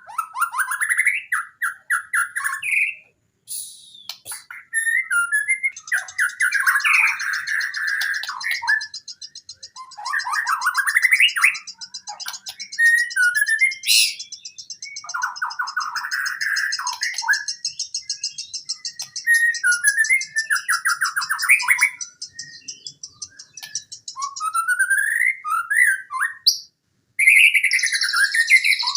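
White-rumped shama (murai batu) singing a loud, varied song of rich whistled phrases with short pauses between them. A high, fast buzzing trill runs behind the song from about six seconds in until a few seconds before the end, and comes back near the end.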